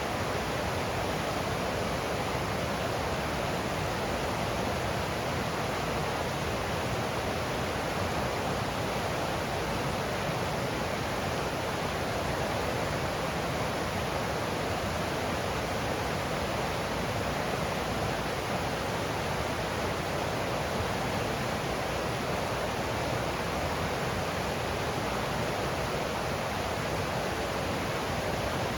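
Steady rushing of a forest stream's water flowing over rocks, an even unbroken noise.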